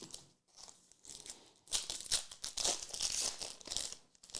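Trading cards and their foil pack wrapper being handled: irregular crinkling and rustling, busiest in the second half.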